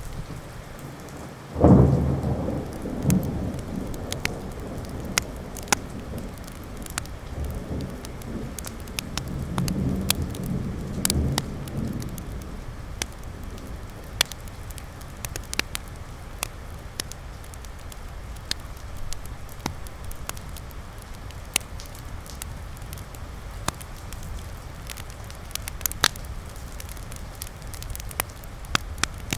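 Steady rain with a roll of thunder that breaks about two seconds in and rumbles on for about ten seconds before fading. Sharp crackling pops from a wood fire sound throughout.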